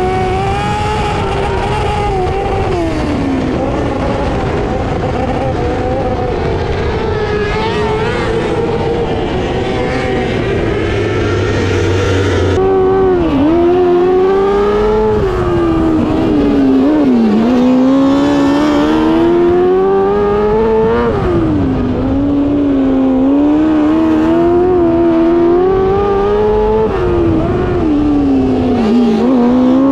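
600cc micro sprint's motorcycle-based engine racing on a dirt oval, its pitch climbing as it accelerates and dropping sharply as it lifts for the turns, over and over. The sound changes abruptly about twelve seconds in.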